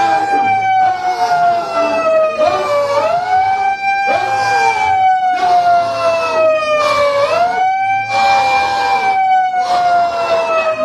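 Electronic siren wailing: each cycle rises quickly, then falls slowly, repeating about every four seconds, and cuts off abruptly at the end.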